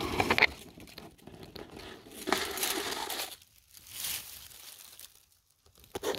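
Dry fallen leaves crunching and rustling in about four bursts, with quieter gaps between them.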